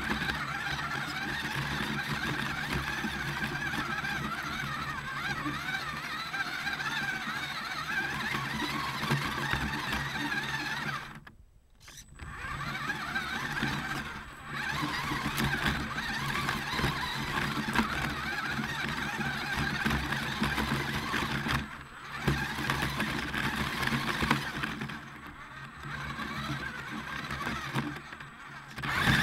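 Radio-controlled rock crawler's brushed electric motor and geared drivetrain whining as it drives over grass, recorded on the truck itself. The pitch wavers with the throttle. The whine cuts out for about a second near the middle and again briefly about two-thirds through, as the truck stops and sets off.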